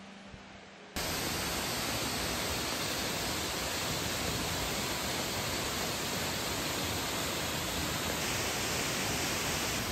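Jaein Falls, a tall waterfall plunging into a pool, making a steady, even rush of falling water that cuts in suddenly about a second in.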